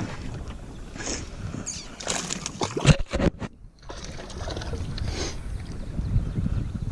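A hooked bass splashing and thrashing at the water's surface as it is reeled toward the boat, mixed with scattered clicks and knocks, the sharpest about three seconds in.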